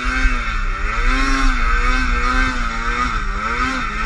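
Polaris 800 Pro-RMK snowmobile's two-stroke twin engine running hard through deep snow, its pitch rising and falling about once a second as the throttle is worked.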